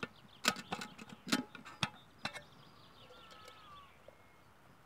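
Clinks and knocks of a metal camping cook pot and its lid being handled as it is unpacked and the lid is lifted off, with several sharp clatters in the first couple of seconds.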